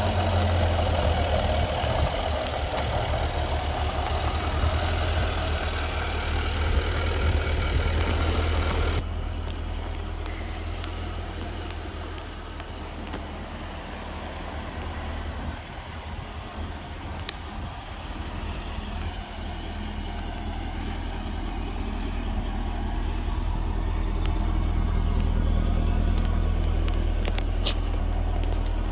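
2021 Jaguar F-Type R's supercharged 5.0-litre V8 running at a steady idle, with a hiss over it that cuts off abruptly about nine seconds in.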